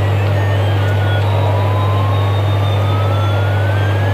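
Battery-operated toy Airbus A380 airliner playing its electronic airplane sound effect: a loud, steady low hum, with a thin whine that rises slowly in pitch from about a second in.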